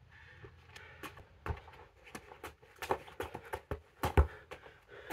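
Ball touches from freestyle football juggling: irregular soft taps and thuds of a ball against feet, shins and shoes, with shoe scuffs on the paving, and a few louder thumps about four seconds in.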